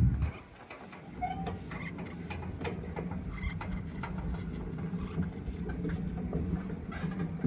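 A zoo ride's running gear gives a steady low mechanical hum with scattered light clicks and rattles over it. There is a low thump at the very start.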